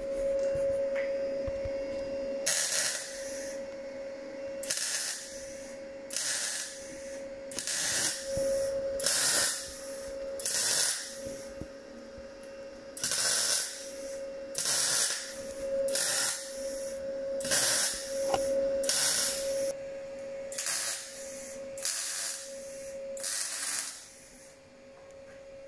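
MIG welder arc on the rusty steel underside of a Ford Transit van, struck in about fifteen short bursts of a second or less with brief pauses between: stitch welding a repair patch onto thin, poor metal.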